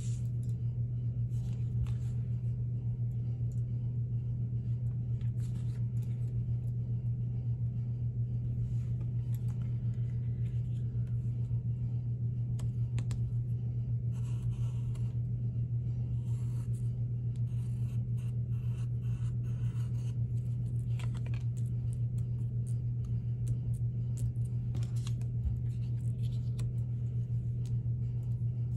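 Pencil scratching on paper in short, uneven strokes while tracing around stencil templates, over a steady low hum.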